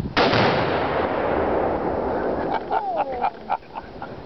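An exploding target set off by a gunshot: one sudden loud blast with a long rolling echo that fades over about two seconds.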